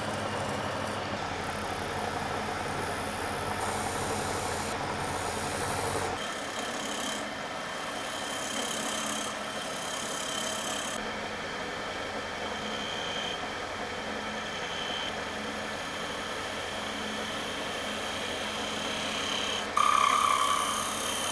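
Steady running noise of a woodworking power tool at work. Its deep part drops away about six seconds in, a faint high whine runs on after that, and it briefly gets louder near the end.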